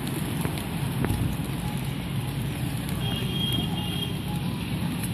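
Steady outdoor background noise: a low rumble with a faint crackle, with a few faint clicks in the first second and a faint high chirp about three seconds in.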